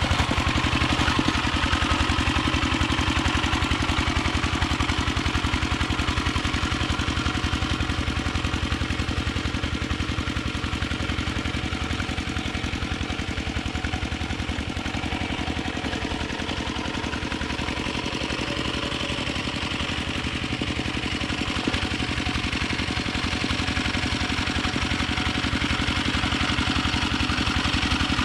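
Yanmar two-wheel hand tractor's single-cylinder diesel engine chugging steadily under load as it pulls a harrow through a flooded rice paddy. It grows quieter midway as the tractor moves off across the field and louder again near the end as it turns back.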